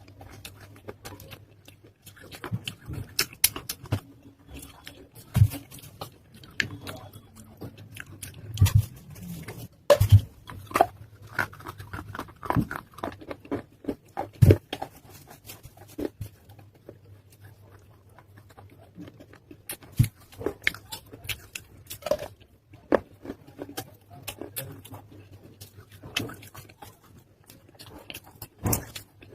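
Close-miked chewing and biting of water-soaked baked clay pot: irregular crunches and sharp wet clicks, a few every second, over a faint low hum.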